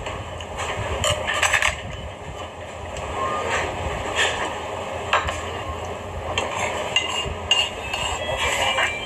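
Eating sounds: a few sharp clinks of chopsticks and a spoon against a dish, and drinking from a can, over a steady low background hum.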